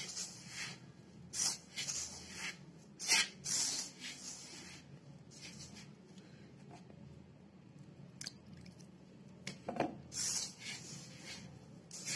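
A hand rubbing and tossing roasted rice flour in a steel bowl while water is worked in to moisten it for puttu. It makes soft rustling scrapes in irregular bursts, with a quieter stretch in the middle.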